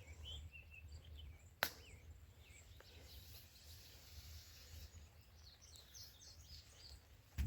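Quiet outdoor ambience: small birds chirping now and then over a steady low rumble, with one sharp click about a second and a half in.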